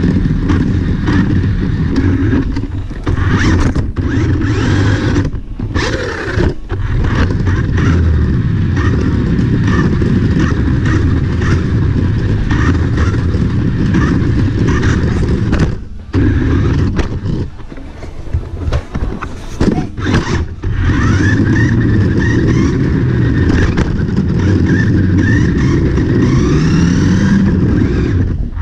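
Toy RC car's small electric motor and gears whining, with tyre noise on a hardwood floor, heard from a camera mounted on the car. It stops and starts several times, and near the end the whine rises in pitch as it speeds up.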